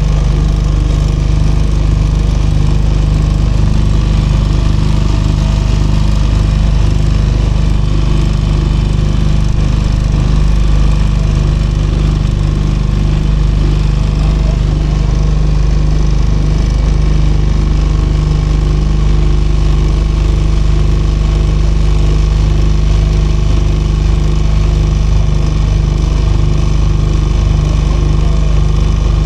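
The engine of a small hired leisure motorboat, running steadily at a constant speed with no change in pitch.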